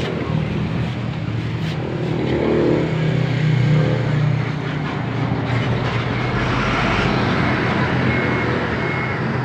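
Motor vehicle running: a steady low engine hum with road noise, swelling slightly a few seconds in.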